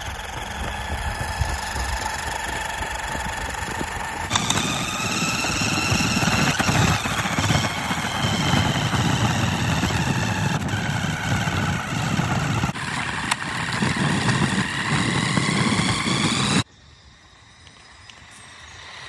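Electric motor of a radio-controlled Ferrari F1 model car whining as it drives, the pitch rising and falling with speed. The sound changes abruptly a few times, and near the end it is much fainter, growing louder as the car comes closer.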